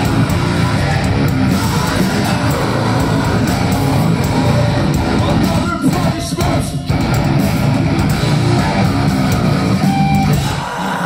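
Heavy rock band playing live and loud: distorted electric guitars, bass and drums, with the vocalist singing over them. The band stops short for a few quick stop-start hits about six seconds in.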